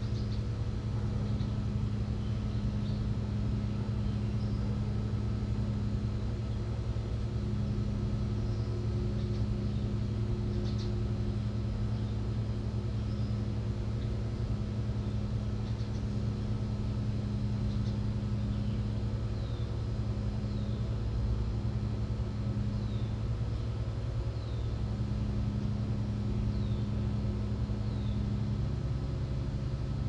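A steady low mechanical hum throughout, with faint short bird chirps above it; in the second half a bird gives a falling chirp about every second and a half.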